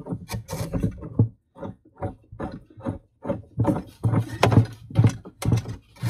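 PVC union ring being hand-threaded onto a sump pump's outlet: an irregular run of short plastic clicks and knocks, a few a second, softer for a couple of seconds about a second in.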